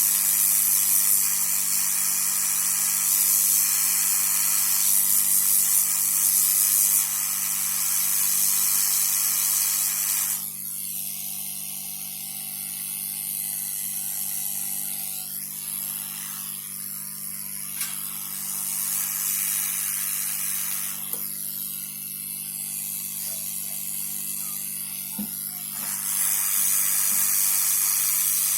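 Hot-air rework station blowing a steady hiss over a motherboard while MOSFETs are reflowed into place. The hiss drops back twice for a few seconds at a time, with a steady hum underneath.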